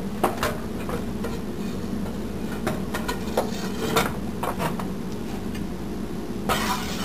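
Kitchen utensils clicking and tapping against a pan and bowl over a steady low hum, with a busier run of clatter starting near the end.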